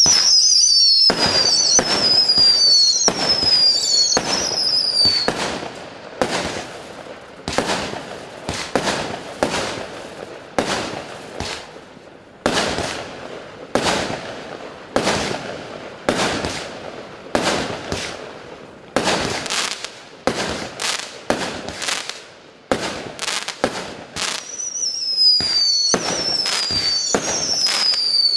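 Klasek Turtle Burger 25-shot fireworks cake firing: a long run of shots and bursts. Falling whistles sound over the first few seconds and again near the end.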